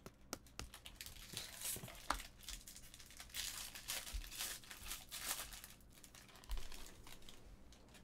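Foil trading-card pack wrappers crinkling and tearing as packs of baseball cards are opened, in several bursts with light clicks and taps of cards being handled.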